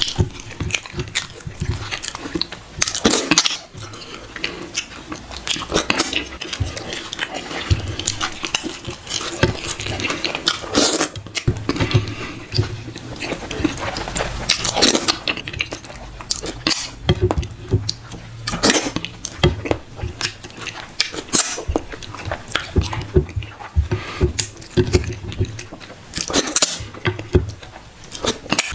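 Close-up eating with the hands: fingers scraping and squelching through thick, oily sauce on a plate, with wet chewing and lip smacking. The clicks and smacks come irregularly and close together.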